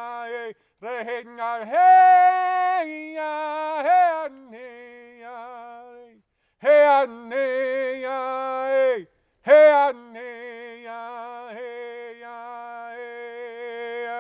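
A man singing a traditional Shawnee traveling song solo and unaccompanied: long held notes that step up and down in pitch, in phrases broken by brief pauses for breath.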